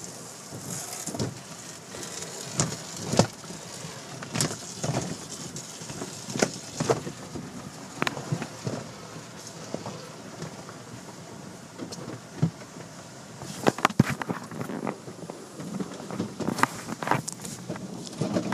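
Automatic car wash heard from inside the car: water spray pattering on the glass and body, with irregular slaps and knocks as the cloth curtains and brushes sweep over the windows and roof. The knocks come thickest about fourteen seconds in and again near the end.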